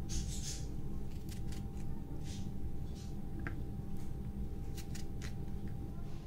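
Serrated knife slicing through fresh okra pods held in the hand: a series of short, crisp cuts at irregular intervals, over a steady low background hum.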